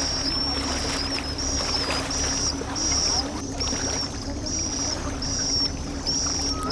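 Rhythmic high-pitched chirping, about one and a half chirps a second, over a steady low hum and rumble.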